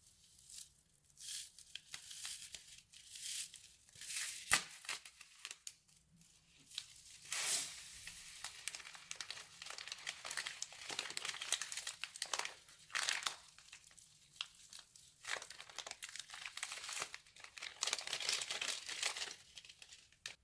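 Crunchy slime being squeezed and worked by hand, crackling and crinkling in irregular bursts, with one sharp snap about four and a half seconds in.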